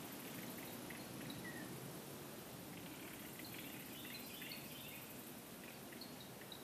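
Faint woodland ambience: steady background noise with scattered short, high bird chirps, a busier run of them in the middle.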